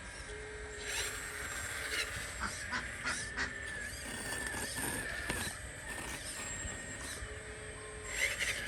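Small electric motors of a radio-controlled toy excavator whining steadily, with scattered clicks and rattles from its moving parts.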